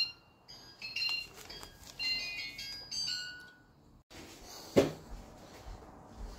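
A short high-pitched jingle of quick chiming notes, like a ringtone or music box, lasting about three and a half seconds. It is followed by faint room noise and a single thud.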